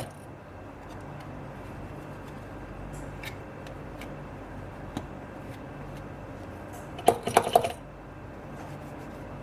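Hands handling a new replacement glass panel and a plastic mold: a few light clicks, then a short clatter of hard pieces knocking together about seven seconds in, over a steady low hum.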